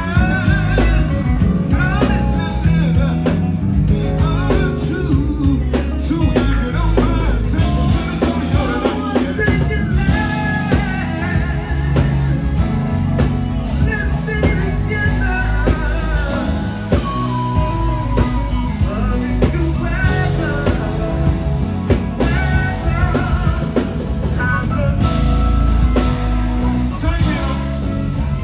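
Live R&B band music: a male vocal group singing over electric guitar, keyboards and a drum kit.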